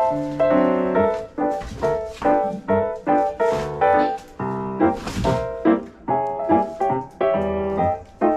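Background music: piano playing a rhythmic pattern of chords and notes.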